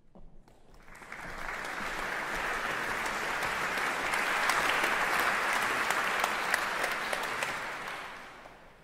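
Audience applauding in a large concert hall, greeting a performer as she walks onto the stage. The clapping builds over about the first second, holds steady, then dies away near the end.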